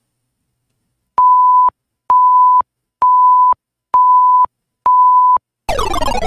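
Countdown timer beeping five times, a steady single-pitch beep about half a second long roughly once a second, marking a five-second answer time. Near the end comes a louder sound effect of several tones sliding down in pitch together.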